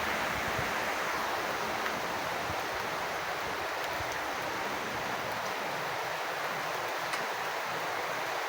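Rain falling steadily, an even continuous hiss of water, with a few faint ticks of drops.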